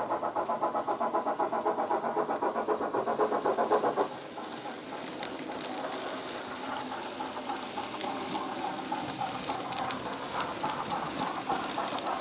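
Bachmann 9F model steam locomotive's Loksound 5 sound decoder, playing Jamie Goodman's steam sound through a megabass speaker: rapid, even exhaust chuffs. About four seconds in they drop abruptly to quieter beats, with light clicking of the model's wheels on the track. The chuffs grow a little louder near the end as the loco comes into view.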